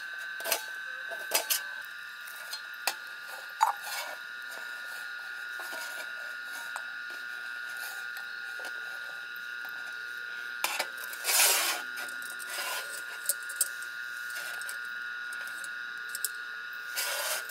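Light clicks and knocks of small objects being handled, scattered irregularly over a steady high-pitched tone, with two brief louder rustling noises, one a little past halfway and one near the end.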